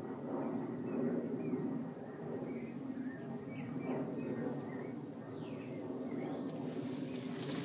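Outdoor rural ambience: scattered short bird chirps over a steady high insect whine. Near the end, a brief loud rustle of leaves as the plants are brushed past.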